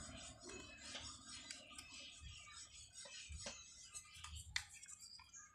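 Faint, scattered clicks and ticks of plastic and wire as an angle grinder's switch and its spring are fitted back into the handle housing by hand.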